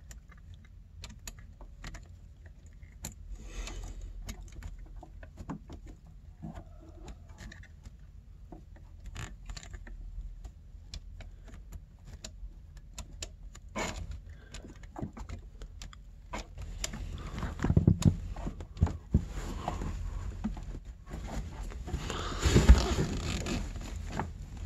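Light metallic clicks and scrapes of snowmobile power-valve cables and their end fittings being worked by hand into the servo pulley. The handling grows busier and louder in the last several seconds, with a couple of sharper knocks.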